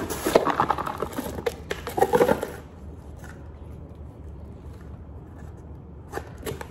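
Plastic packaging rustling and crinkling, with clicks of plastic lunch-box parts knocking together as they are unpacked. After about two and a half seconds it quietens to light handling, with a few soft clicks near the end.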